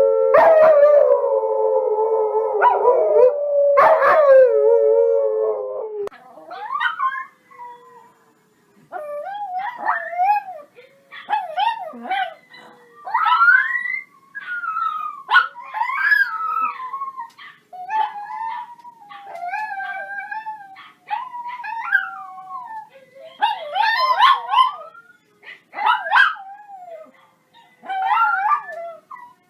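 Dogs howling: first a long, steady howl of several voices together, broken by two sharp sounds, for about six seconds. After a short pause it turns into a string of short, wavering yips and whines over a fainter, long falling howl.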